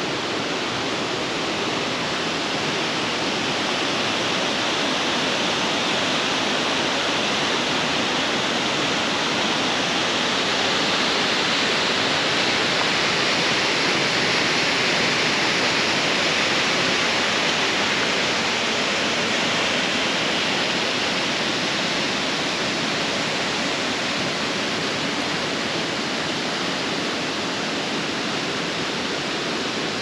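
Steady rush of a 70-foot waterfall pouring into a rocky gorge, a little louder around the middle.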